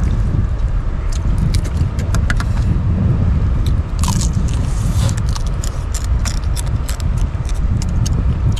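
Boiled crab shells being cracked and chewed: scattered sharp crackles and clicks over a steady low rumble.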